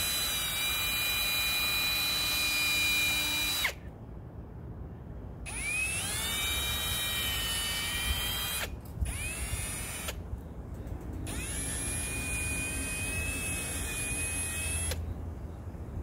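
Electric drill whining in repeated runs: already running at the start and cutting off a little under four seconds in, then spinning up with a rising whine and running steadily three more times, the last run stopping near the end.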